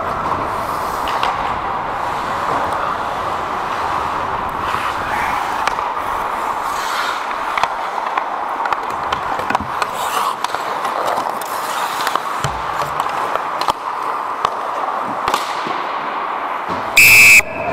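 Ice hockey play heard up close: skate blades scraping and gliding on the ice, with scattered clacks of sticks and puck. Near the end comes a single short, loud blast of a referee's whistle.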